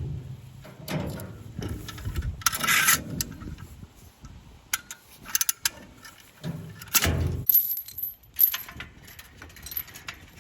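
Woven-wire field fence (page wire) rattling and clinking as it is pulled around a wooden post and wrapped back through itself, with many scattered metallic clicks and a couple of dull low thuds.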